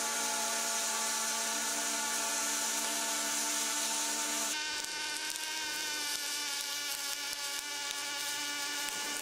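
Robotic arc welding: the welding arc at the KUKA robot's torch buzzes steadily with a hiss. About four and a half seconds in, the buzz changes pitch.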